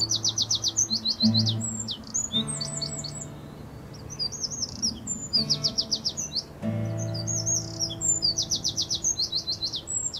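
Dawn-chorus birdsong: repeated quick runs of high chirping notes. Under it run slow, held low musical notes that change every few seconds.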